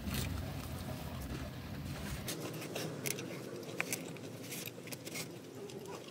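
A person biting and chewing fried chicken close to the microphone, with scattered short mouth clicks and crackles.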